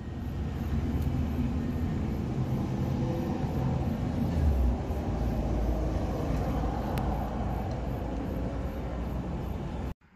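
Large truck's diesel engine running steadily at idle, a loud low rumble heard close up; it cuts off suddenly near the end.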